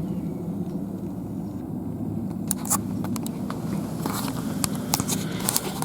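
Steady low rumble like a running vehicle. From about two and a half seconds in it is joined by a scatter of sharp clicks and handling noises.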